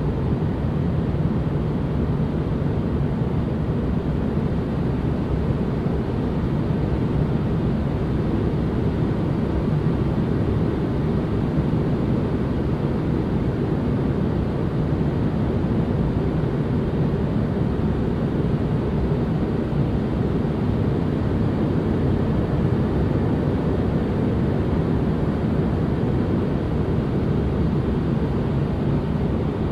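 Steady, unchanging white-noise ambience: an even, low, muffled rushing noise with no breaks or events.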